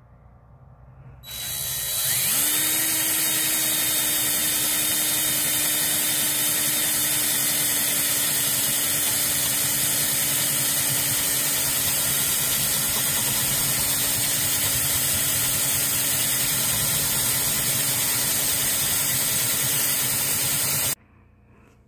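DeWalt 20V MAX cordless drill boring a hole through wooden boards with a spade bit. The motor spins up about a second in, runs steadily under load, and stops suddenly near the end.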